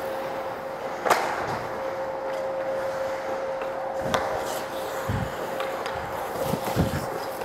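Ice hockey play: skates scraping on the ice and sharp clacks of sticks and puck, about a second and about four seconds in, with a few dull thumps later, over a steady hum.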